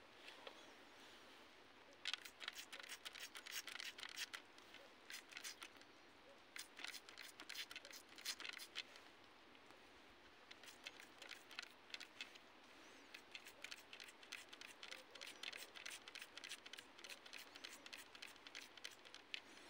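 Small plastic toy water pistol pumped rapidly by its trigger, squirting short jets: runs of quick clicks, several a second, starting about two seconds in and coming in bursts with short pauses between.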